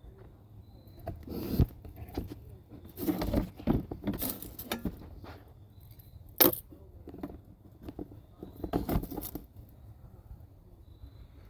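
Hand tools and metal brake parts clinking and knocking in irregular bursts, with a sharp metallic clank about six seconds in.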